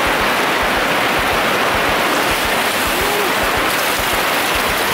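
Heavy rain falling steadily on a fabric awning. Near the end, rainwater pooled on the awning spills off its edge in a pouring stream as the awning is pushed up.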